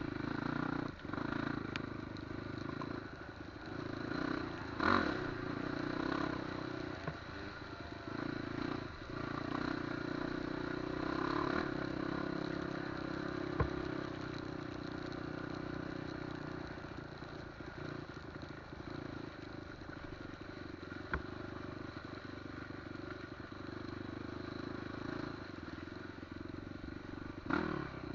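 Off-road motorcycle engine running steadily as the bike is ridden along a trail, with a few short knocks and rattles from the bike over the ground.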